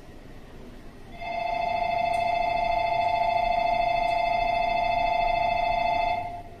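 Station departure bell ringing steadily for about five seconds, starting about a second in and cutting off sharply.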